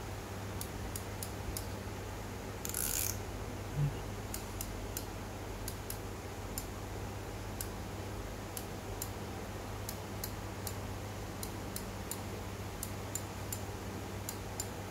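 Shimano Sephia BB C3000SDH spinning reel cranked slowly by hand: faint, high ticks a few times a second from the turning rotor and gears. A brief rustle comes about three seconds in, and a soft thump just after.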